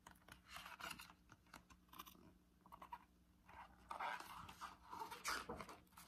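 Faint rustling and scraping of a picture book's paper pages as it is held up, shifted and turned, in scattered short noises.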